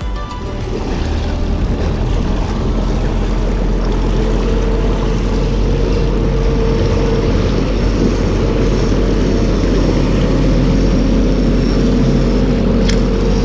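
Suzuki outboard motor running under way, with water rushing along the hull. It builds over the first couple of seconds, then holds a steady pitch.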